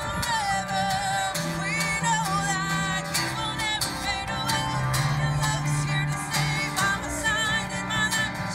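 Live band music: a woman sings into a microphone over two strummed acoustic guitars, with held low notes underneath, amplified through a small PA.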